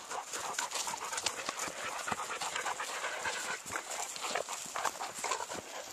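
Siberian huskies panting as they walk, mixed with footsteps and rustling on a grassy dirt trail.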